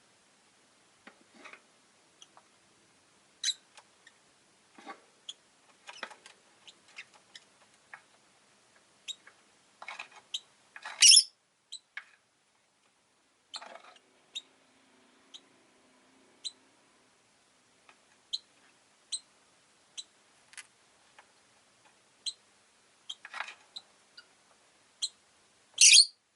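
Rosy-faced lovebird making scattered short chirps and clicks, with two loud, shrill calls: one about eleven seconds in and one near the end.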